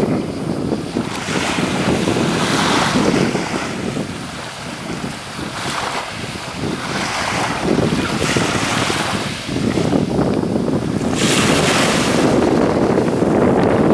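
Small waves washing onto a pebbly shore, swelling and easing every few seconds, with wind buffeting the microphone.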